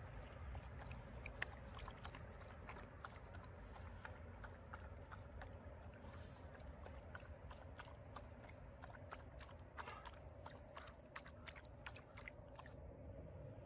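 A dog with its muzzle in a bowl, its mouth making a run of quick, irregular wet clicks that stop about a second before the end.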